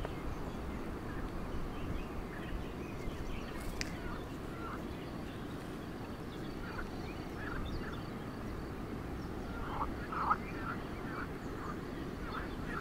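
Steady low background rumble with faint short animal calls, scattered through the second half and clustered about ten seconds in, and a single click about four seconds in.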